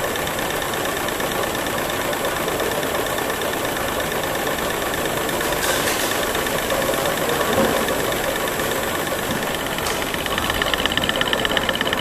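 TRS450 mini slitting-rewinding machine running, its rollers slitting and rewinding tape onto paper cores: a steady mechanical whir with a thin high tone. Near the end a fast, even rattle comes in on top.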